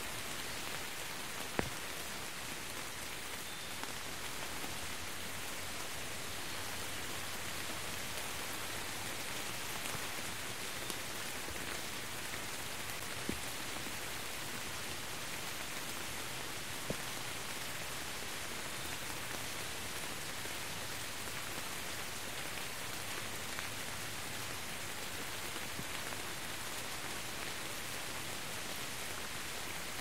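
Steady rain falling and splashing on wet ground: an even hiss with a few sharper single drop hits scattered through.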